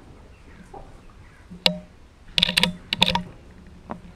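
A series of short, sharp clicks: one a little under two seconds in, a quick cluster of them about halfway through, and a couple more near the end.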